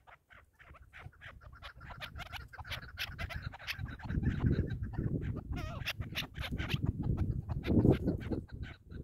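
Chukar partridges calling: a rapid run of clucking notes that grows louder. A low rumbling noise joins underneath about four seconds in.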